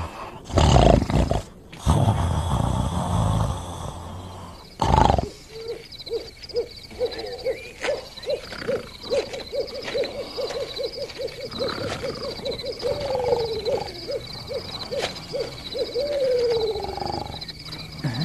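The wolf snoring loudly in long, rough breaths for the first few seconds. Then a night-time outdoor ambience: an owl hooting in a quick run of short hoots, about three a second, with a couple of longer falling hoots near the end, over a steady chirring of crickets.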